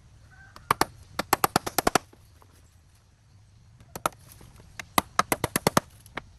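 Two quick runs of sharp knocks, about eight a second: one run about a second in, the other about five seconds in, with a few lone knocks around them.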